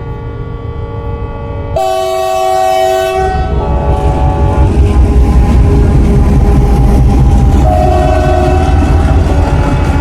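WDP-4D EMD diesel locomotive sounding its multi-note horn almost without pause as the train passes at full speed. About two seconds in, the horn gets louder. A second or so later the heavy rumble and rattle of the locomotive and coaches rushing by takes over, with the horn still going and another blast near the end.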